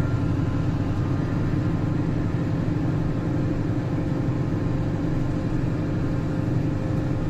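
Claas tractor engine and the PTO-driven Özen İş hay chopper behind it running steadily under load, heard from inside the tractor cab as an even drone with a constant hum.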